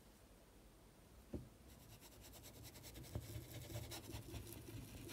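Faint scratching of a paintbrush rubbed over fabric in small circular strokes, starting about a second and a half in, just after a single soft knock.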